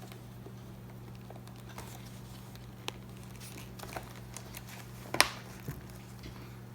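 Small clicks and handling noises of plastic helmet and intercom parts being fitted together by hand, with one sharper click about five seconds in. A steady low hum runs underneath.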